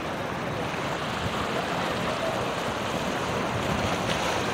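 Sea surf washing and foaming over and between boulders on a rocky shore: a steady rush of water.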